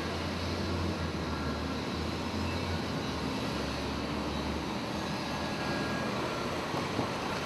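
Puzzle-type shift parking system running: a steady mechanical whir with a low hum underneath that dies away about four and a half seconds in.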